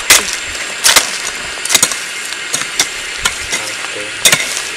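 Several sharp, irregular knocks of a hand hoe chopping into dry, stony soil, over a steady hiss.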